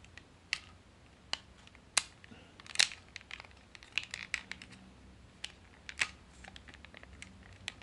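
Hard plastic parts of a Takara Masterpiece MP-36 Megatron transforming figure clicking and snapping as they are folded into place by hand, with light handling rustle: about a dozen sharp, irregular clicks.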